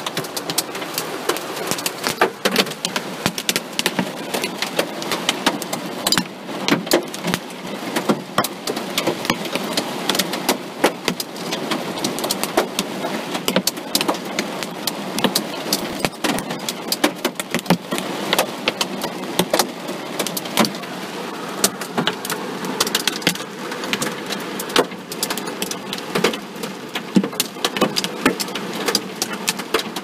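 Hailstones hitting a car's body: a dense, irregular run of sharp hits on the metal.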